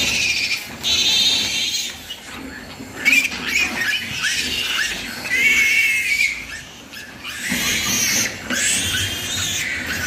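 Newborn piglets squealing in repeated high-pitched, wavering cries while being held up and handled, with short breaks between squeals.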